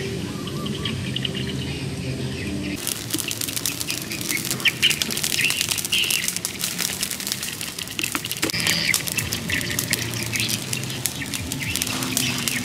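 Dry leaves and twigs burning in an open fire, crackling and popping densely from about three seconds in. Birds chirp over it.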